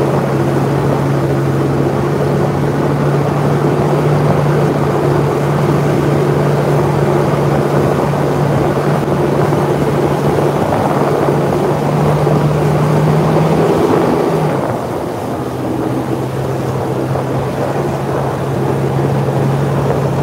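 Personal watercraft (jet ski) engine running at speed under the rider, a steady drone over rushing water and wind on the microphone; about two-thirds of the way through the note drops and eases off as the throttle is backed off, then settles. The rider calls this machine noisy.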